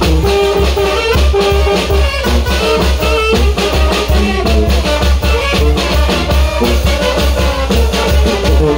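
Brass band playing live: sousaphone bass notes pulsing on a steady beat under baritone horns, saxophone and a bass drum.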